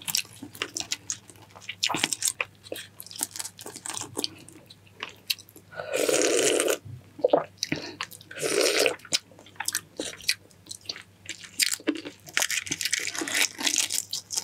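Close-miked chewing of balut (boiled duck egg with embryo): wet biting, crunching and smacking clicks. About six seconds in and again near nine seconds there are two louder rushing sounds, each about a second long.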